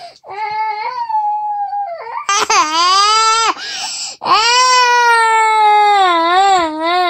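A two-year-old toddler crying loudly in protest at being put to bed: a short cry, then long high wails from about two seconds in, the last one wavering up and down in pitch near the end.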